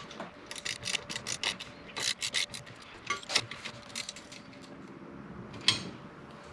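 A wrench working the luggage rack's bolts by hand: a quick run of small metallic clicks and scrapes, a second cluster, then a few single clicks and one sharp click near the end.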